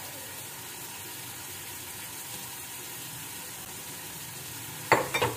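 Chicken keema sizzling in a frying pan while tomato paste is poured in, a steady low hiss. About five seconds in, a few sharp knocks.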